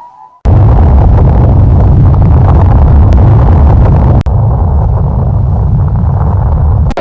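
Anime sound effect: a loud, steady rumble of noise, heaviest in the low end, that starts abruptly about half a second in, breaks briefly about four seconds in, and cuts off just before the end.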